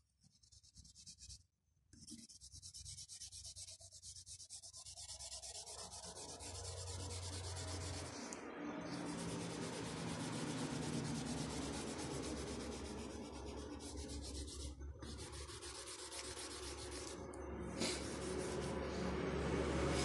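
Oil pastel being rubbed and blended on paper by hand, a steady scratchy rubbing that starts about two seconds in and stops briefly a few times.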